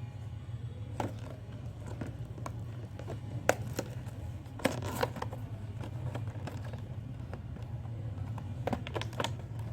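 Hands opening a small cardboard toy-car box and handling its packaging: scattered clicks, taps and light rustles, the sharpest about a third and halfway through, with a steady low hum underneath.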